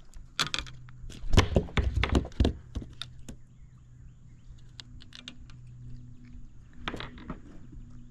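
A flurry of hard knocks and thumps on the kayak as a freshly caught bluegill is handled, loudest from about one to two and a half seconds in, then a few lighter taps near the end over a faint steady low hum.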